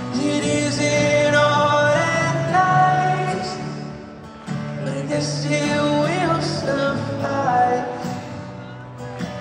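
Live song in a large arena: a man singing over guitar, recorded by a phone from high in the crowd, with a short break between phrases about four seconds in.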